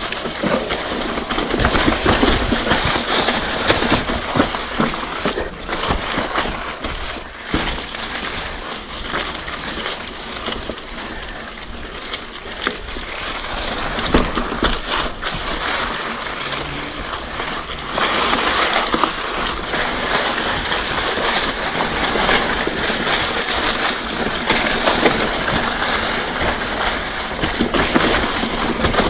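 Mountain bike riding down a rough dirt singletrack: continuous tyre crunch over the trail surface with frequent knocks and rattles from the bike.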